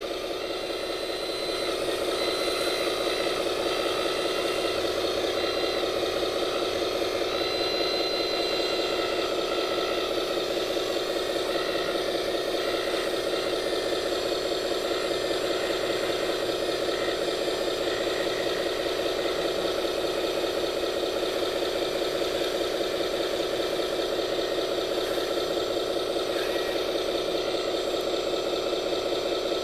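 Radio-controlled scale construction machine running steadily, an even engine-like drone with a light rattle.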